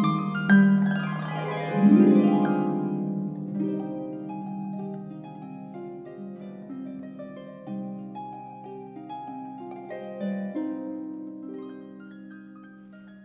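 Solo pedal harp playing: strong plucked chords and a sweeping glissando in the first two seconds, then a softer, lighter passage of plucked notes that slowly grows quieter.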